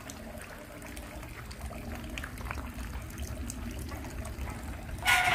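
Faint steady rush of running water from a tap that is left running all the time, with a short louder noise near the end.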